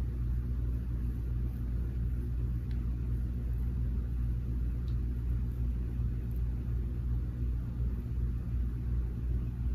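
A steady low rumble that neither rises nor falls, with nothing else standing out over it.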